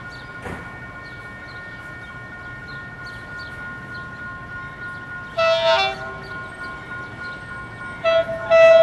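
Approaching diesel locomotive horn: one blast a little past halfway, then two short blasts near the end, the last the loudest. A steady high tone runs underneath.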